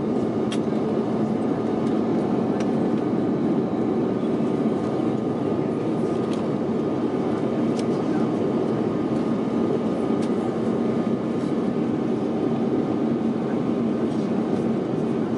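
Steady engine and airflow noise inside an airliner cabin, with an even hum and a fainter higher tone running through it. A few faint clicks sound now and then.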